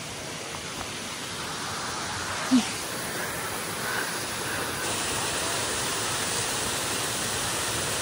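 Steady rushing of a slender waterfall, growing gradually louder and brighter toward the end, with one brief sharp sound about two and a half seconds in.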